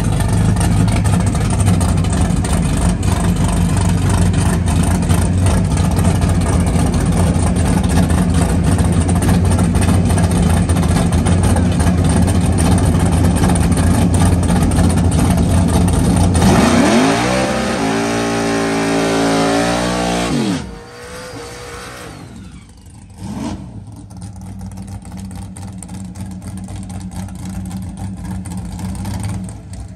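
Small-tire drag race car engines running loud at high revs. About sixteen seconds in, the engine note sweeps up and back down over about four seconds, then drops away to a quieter running sound.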